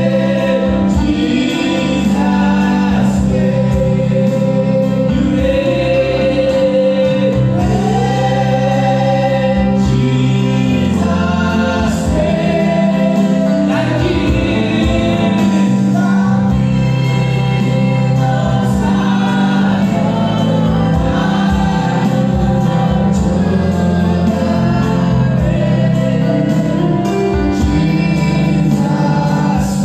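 Gospel worship song: group singing over band accompaniment with sustained bass notes.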